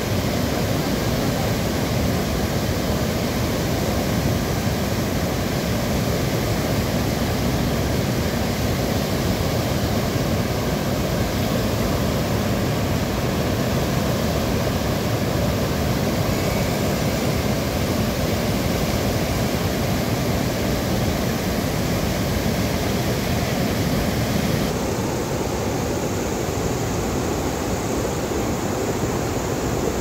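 Steady rush of floodwater spilling over the surplus weir of a full lake tank and churning in whitewater below.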